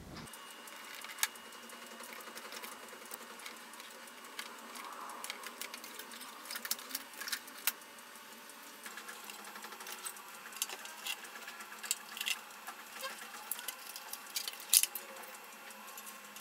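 Irregular light clicks and taps of metal chassis parts and circuit boards being handled as an LCD monitor is taken apart, with one sharper click near the end.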